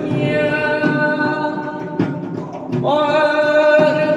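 A man's voice sings Arabic religious chant (inshad ibtihal), drawing out long ornamented notes. He breaks off briefly about two seconds in, then takes up a new held note just under three seconds in.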